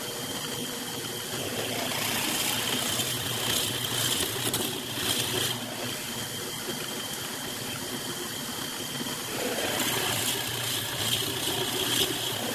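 Drill press motor running with a 1 1/4 inch Forstner bit boring into a wood block: a steady hum and high whine, with the cutting noise growing louder in two stretches as the bit bites into the wood.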